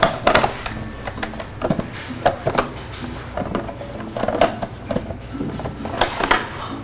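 Plastic clicks and knocks of a Ninja blender's lid being pressed down and latched onto its pitcher, a dozen or so irregular snaps, the sharpest near the start and about six seconds in. Soft background music underneath.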